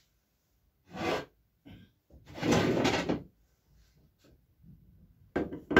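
Steel carriage plate running along round-shaft linear rails on its linear bearing blocks: a short slide about a second in and a longer one of about a second soon after. Near the end, a few sharp metal knocks as a rail is handled.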